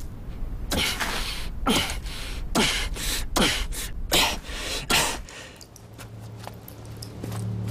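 A man panting hard: six sharp, voiced breaths about one every 0.8 seconds, each dropping in pitch, fading out about five seconds in.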